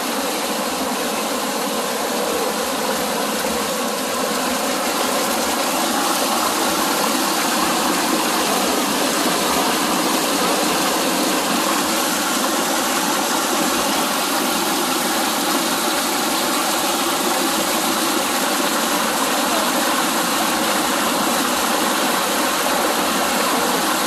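Mountain stream water rushing and splashing over boulders in a small cascade, heard close up as a steady, unbroken rushing noise.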